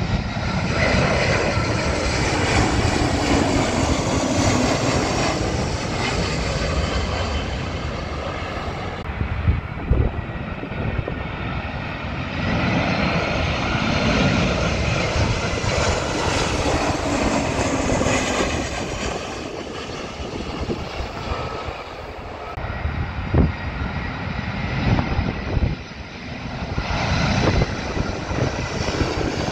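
Airbus A320-family twin-jet airliners passing low on final approach with gear down, their engines giving a steady, loud jet rush with a faint whine. The sound changes abruptly several times as separate passes follow one another.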